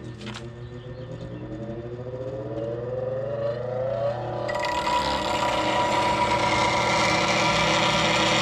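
Bench grinder with a fine stone wheel spinning up, its whine rising steadily in pitch for about four seconds. Then, about four and a half seconds in, a steady, louder grinding hiss starts suddenly over the motor's hum: a turning gouge held in a pivoting jig is being ground to a modified bowl-gouge grind.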